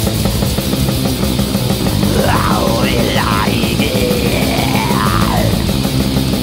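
Black metal band playing an instrumental passage, with guitars, bass, drums and keyboards. Through the middle a high line slides up and down in pitch over the dense backing.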